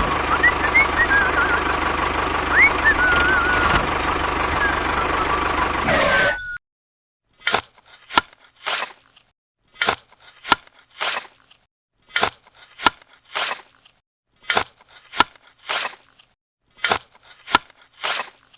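A small motor running steadily, cut off abruptly about six seconds in. Then a run of short, sharp scraping strokes in groups of three, each group about two seconds apart.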